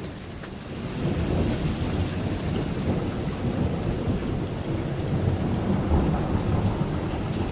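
Steady rain falling, with a low, continuous rumble of thunder underneath.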